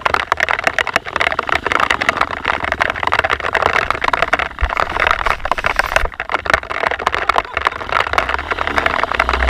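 Dirt bike engine running on a trail ride, a dense, fast-pulsing mechanical sound with low, gusty rumbling throughout.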